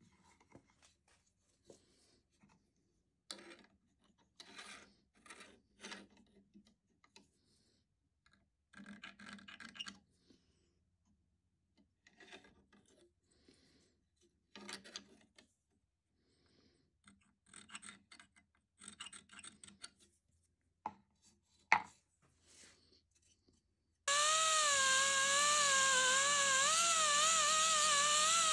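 Short scratching and scraping strokes of a scriber and square marking out a metal plate held in a vise. For the last few seconds a handheld rotary tool with a cut-off disc runs on the plate: a loud high whine that wavers a little in pitch.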